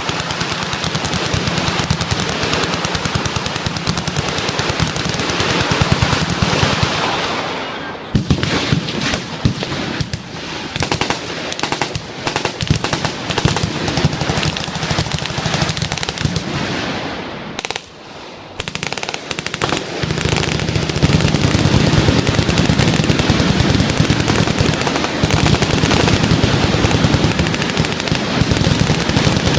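Many machine guns firing at once in long, overlapping bursts of full-auto fire. The fire thins out about eight seconds in and again near eighteen seconds, then builds to its heaviest and most continuous from about twenty seconds on.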